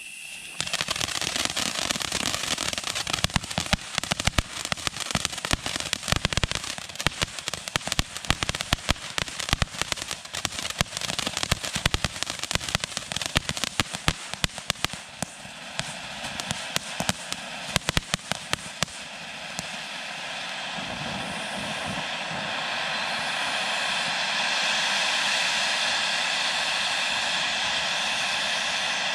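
Sky Bacon Blooming Glory fountain firework burning, with a dense fast crackle of sparks. About two-thirds of the way through, the crackle gives way to a steadier, louder rushing hiss of spraying sparks.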